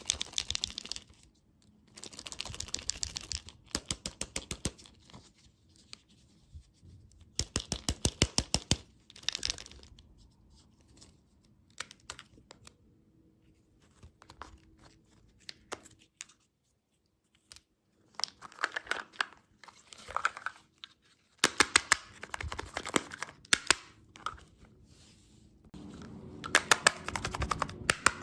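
Candy packaging being handled close up: bursts of crinkling and tearing made of rapid crackling clicks, with pauses between them and a quieter stretch midway.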